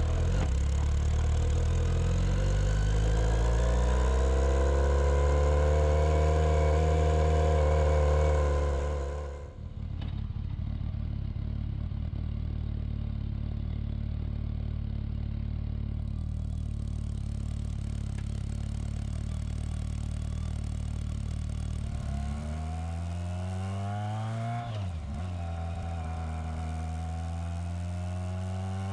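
Motorcycle engine while riding, its pitch rising as it accelerates and dropping at a gear change about three-quarters of the way through. There is an abrupt change in the sound about a third of the way in.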